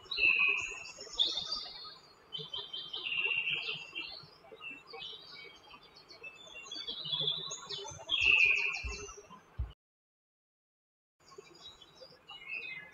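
Small songbirds chirping and twittering, with many short calls in quick succession. A couple of low thumps come just before the sound cuts out completely for about a second and a half, and then the chirping resumes.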